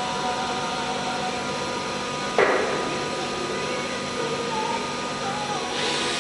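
CNC router machining center with a disc-type automatic tool changer running: a steady mechanical hum with several whining tones, some shifting in pitch later on, and one sharp knock about two and a half seconds in.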